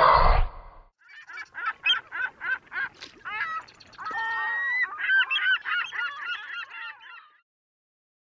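A loud, short, rough animal call, then a run of bird calls: evenly spaced at about three a second at first, then crowding and overlapping before they end about seven seconds in.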